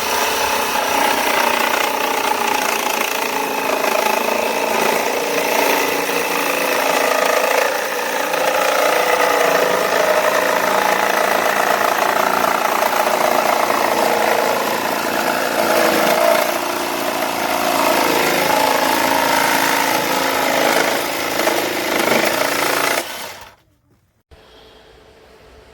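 Artisan Tool ATJS01B 18 V cordless jigsaw running steadily, then stopping near the end.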